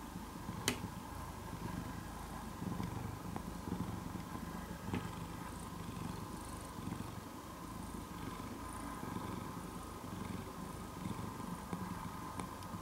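Domestic cat purring close up, a steady low rumble. A single sharp click about a second in.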